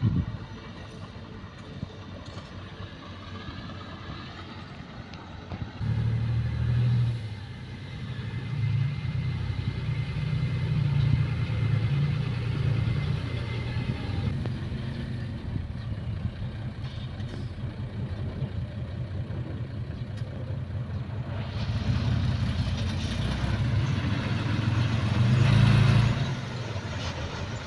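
Heavy diesel earthmoving machine engine working under load. It is quieter for the first few seconds, then louder from about six seconds in, rising and falling in level, with its loudest surge near the end.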